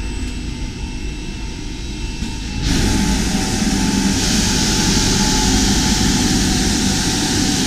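Automatic carpet scrubbing-washing machine running, its rotary disc brushes turning over the carpet with a steady low hum. About two and a half seconds in, a louder, even hiss joins in and holds as the brushes work the wet, chemical-dosed carpet.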